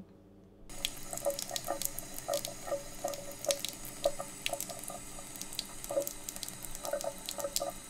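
Tap water running into a shallow photographic tray, splashing over a chemigram print as it is washed after fixing. It starts suddenly about a second in and keeps a steady hiss with small splashes.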